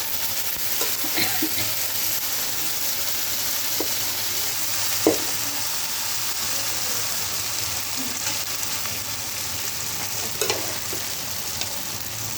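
Rice with soya chunks and vegetables sizzling in hot oil in a pan as it is stirred, with a few short clinks of the spoon against the pan, the loudest about five seconds in.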